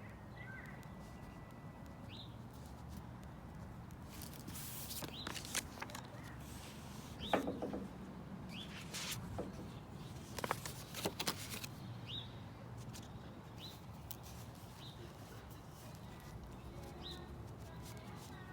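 A bird chirping in short, rising high notes every second or two over a steady low background rumble. In the middle come a few brief scratchy noises and clicks, the loudest about seven seconds in.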